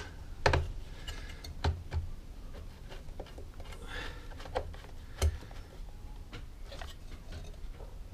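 Light clicks and knocks of a screwdriver and plastic parts being handled against a small chainsaw's plastic housing during reassembly, several sharp taps scattered through with faint rustling between them.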